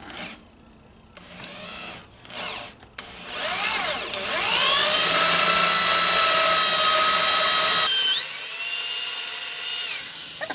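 Electric hand drill with a 1/8 inch bit drilling out a steel door hinge rivet: a few short knocks, a brief rev, then a steady high whine for about four seconds. About eight seconds in the pitch jumps higher as the load eases, and near the end it winds down.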